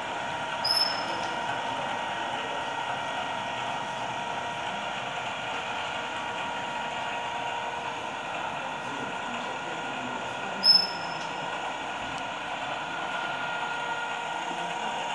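Steady mechanical whirring and hum from a working cutaway of a Mercedes-Benz 2632 truck drivetrain as its gears turn. Two short high squeaks come about ten seconds apart, the second one louder.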